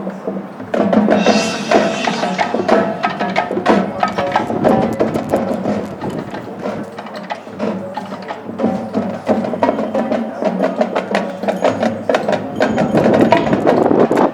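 High school marching band playing, with brass and a busy percussion section tapping out sharp clicks. The full band comes in loudly about a second in.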